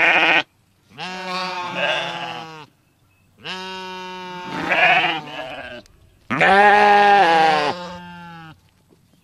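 Goat bleating: the end of one call, then three long, wavering bleats with short pauses between them, the last the loudest.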